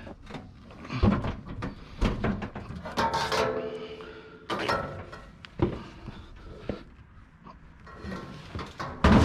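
Heavy sheet-metal whitegoods appliance being lifted and loaded, with several sharp knocks and bangs of its casing. A drawn-out pitched sound comes about three seconds in.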